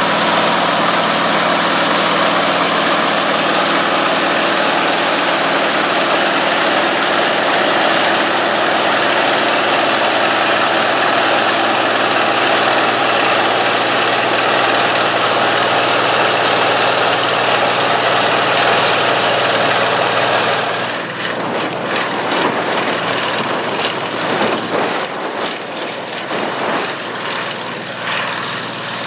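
A John Deere 55 EB combine's gasoline engine and threshing machinery running steadily while harvesting soybeans. About two-thirds of the way through, the sound drops to a quieter, more uneven running.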